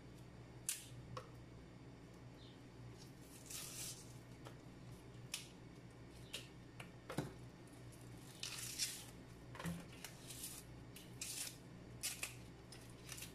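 Hands peeling and tearing the outer layers off spring onion stalks: scattered short, crisp tearing and rustling sounds with light clicks, over a faint low hum.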